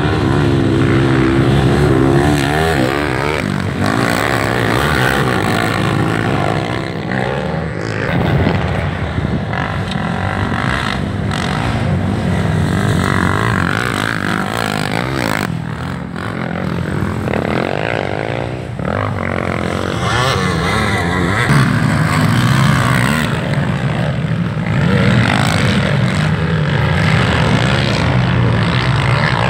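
Several racing quad bike (ATV) engines revving hard, the pitch climbing and dropping over and over as the riders accelerate and shift.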